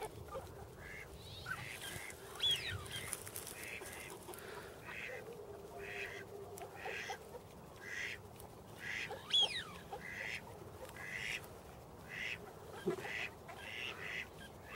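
Ducks on a pond calling faintly: a run of short repeated quacks, about two a second, with twice a higher call that rises and falls.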